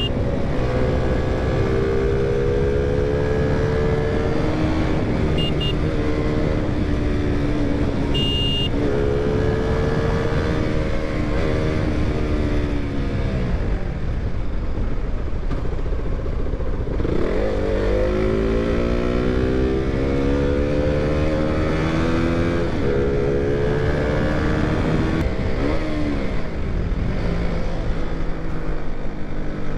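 Single-cylinder KTM motorcycle engine on the move, its pitch climbing in steps as it pulls up through the gears. About halfway through it eases off and the pitch falls, then it climbs through the gears again. Two short high beeps sound about five and eight seconds in.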